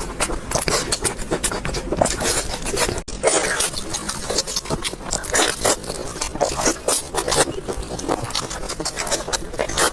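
Close-miked eating sounds: dense, irregular chewing and mouth clicks, broken by a brief gap about three seconds in.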